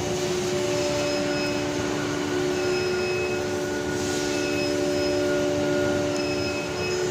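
Steady drone of factory machinery, with a constant low hum and faint short high tones coming and going.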